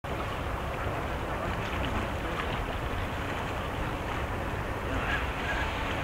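Steady noise of water washing over the shore, with a low rumble of wind on the microphone.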